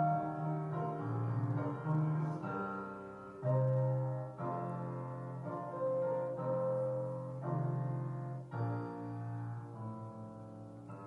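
Piano playing a slow instrumental interlude of sustained chords that change about once a second, growing softer near the end.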